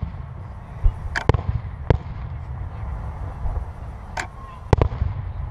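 Aerial firework shells bursting: about five sharp bangs, two in quick succession a little over a second in, one shortly after, then two more near the end.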